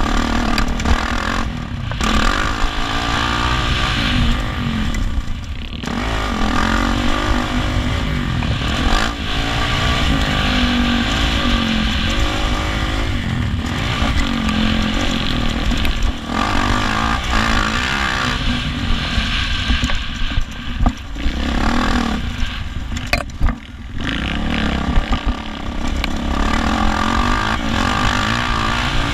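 Yamaha 450 four-stroke dirt bike engine being ridden hard, its pitch rising and falling again and again with throttle and gear changes, with a few brief drops where the throttle is chopped.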